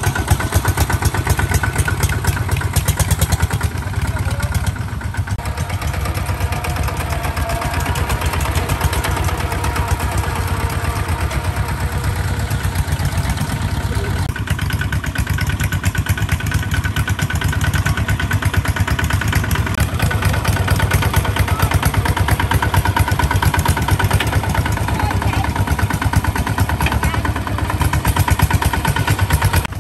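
Single-cylinder diesel engine of a two-wheel walking tractor running steadily with a fast, even beat while pulling a disc plough through wet mud.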